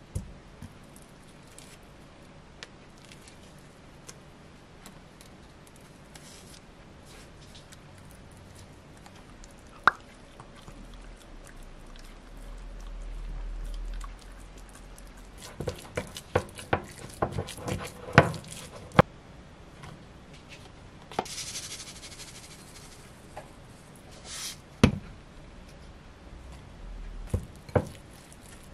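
Kitchen food-prep sounds: a wooden spatula mashing and mixing baked sweet potato in a glass bowl, with soft squishing and sharp taps and clicks against the glass, thickest a little past the middle. A brief hiss follows later on.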